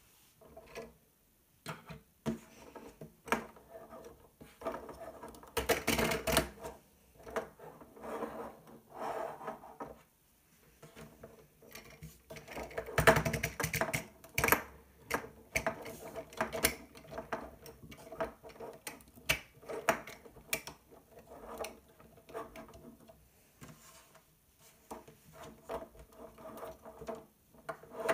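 Lego Technic plastic pieces clicking and clattering as hands pull apart and refold a jet model into a wheeled vehicle, with denser, louder rattling about six seconds in and again around thirteen seconds.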